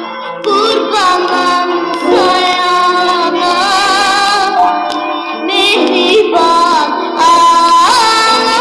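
Azerbaijani woman singing with instrumental accompaniment, on an old gramophone recording. She sings phrases of held, wavering notes that slide between pitches, with a short break just at the start.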